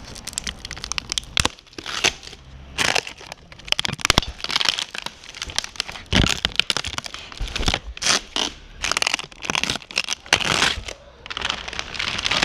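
Packaging being torn open and crumpled by hand: irregular crackling, tearing and crinkling.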